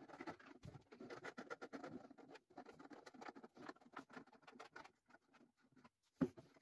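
Faint scratching, clicking and tapping of 3D-printed plastic hull parts being handled while small screws are driven in with a thin screwdriver, pulling the hull halves together. One louder knock comes near the end.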